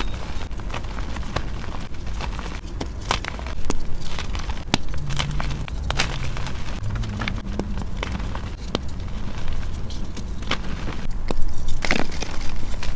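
Soft reformed gym chalk crunching and crumbling as it is squeezed and broken apart in the hands: dry, irregular crackles and crunches, busiest near the end.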